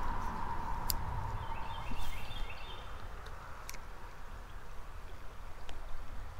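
A small songbird singing a short phrase of quick repeated chirps about two seconds in, over a quiet creek-side background. A few sharp clicks stand out, and a low rumble of handling fades out after the first two seconds.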